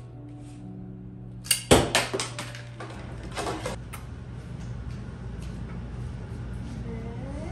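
Soft background music, then about a second and a half in a quick run of sharp plastic clacks as a toy bow is loosed and its suction-cup arrow strikes. Later a steady low room hum, with a faint rising violin slide near the end.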